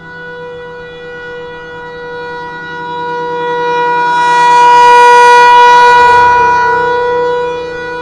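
Federal Signal Thunderbolt 1000 rotating-horn outdoor warning siren sounding a steady alert tone at one unchanging pitch. It swells to its loudest about five seconds in as the turning horn sweeps past, then fades again.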